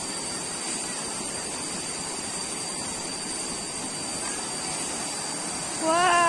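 Shallow forest stream rushing steadily over rocks, under a steady high-pitched insect drone. Near the end a single long, loud cry cuts in.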